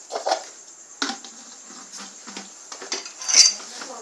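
A few scattered knocks and rustles from objects being handled close by, roughly one a second, with a louder scraping burst about three and a half seconds in.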